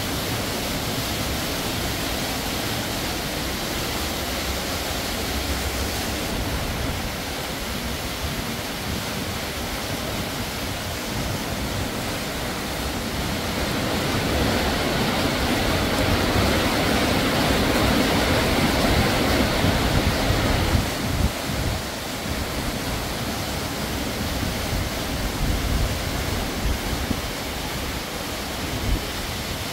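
Small waterfall pouring into a rock pool: a steady rush of falling water that swells louder for several seconds in the middle, with a few brief thumps in the second half.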